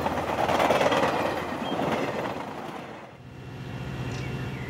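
Passenger train running along the track, a loud rushing rumble that dies away about three seconds in and gives way to a quieter, steady low hum.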